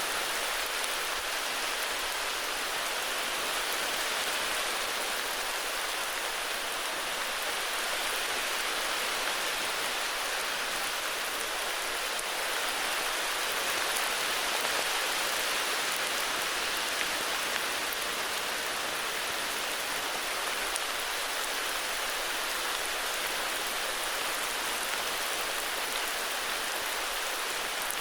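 Steady heavy rain falling, an even hiss of dense drops with no pauses.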